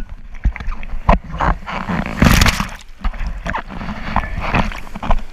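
Rough, gusting rumble of wind and surf water on a GoPro action camera's microphone, with a loud splash-like burst about two seconds in.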